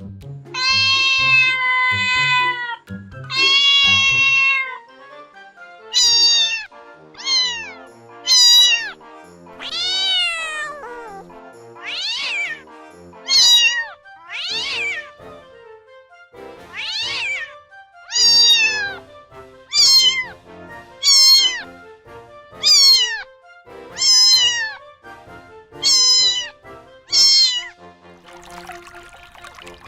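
Cats meowing: two long drawn-out meows in the first few seconds, then a run of short meows, roughly one a second, that rise and fall in pitch.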